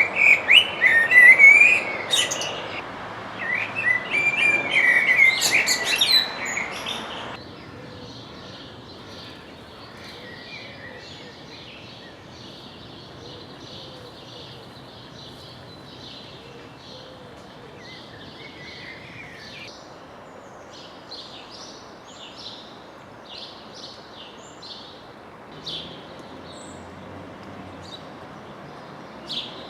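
Songbirds singing over steady city background noise: a loud, warbling song for the first seven seconds or so, then the sound drops suddenly and only faint background noise with short, high chirps from small birds remains, the chirps growing more frequent in the last third.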